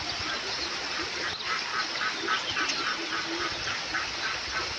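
Small creek running with a steady rush of water, and over it an animal, likely a bird, calling a quick run of about a dozen short notes, roughly five a second, through the middle.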